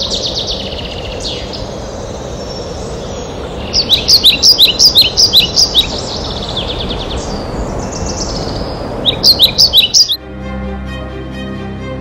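Songbirds chirping over steady background noise, with two loud runs of quick repeated chirps, one about four seconds in and a shorter one near nine seconds. About ten seconds in the birdsong cuts off and instrumental music with held notes begins.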